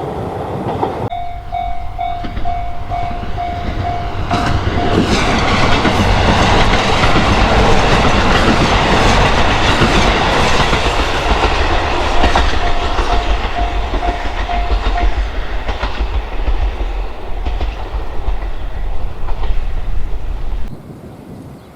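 Japanese level-crossing alarm bell ringing its pulsing "kan-kan" tone, about two strokes a second, while a diesel train runs through the crossing. The train's rumble and wheels clattering over the rail joints swell up and bury the bell for much of the time, then the sound drops off sharply near the end.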